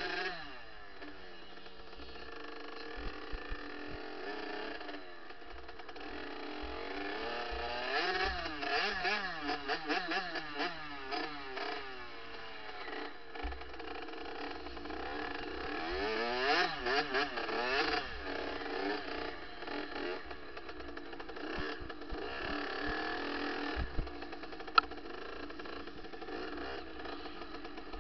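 Kawasaki KX65 two-stroke single-cylinder dirt bike engine revving up and down over and over as the throttle is worked along the trail, with a single sharp tick near the end.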